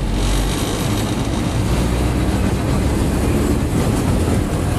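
Historic tram running along the track, heard from the cab: a steady low rumble of wheels on rails and running gear.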